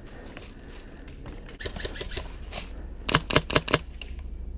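Airsoft gun firing a quick string of about five sharp snaps in under a second, near the end, after a run of softer clicks.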